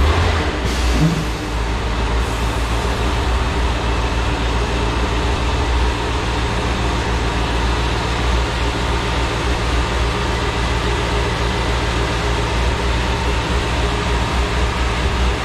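Steady, loud low drone in the dyno cell, with no revving.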